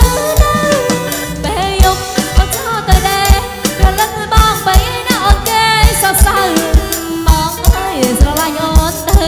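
Live Khmer orkes band playing romvong dance music on drum kit, bass guitar and keyboard, with a steady kick-drum beat about twice a second under a bending melody line.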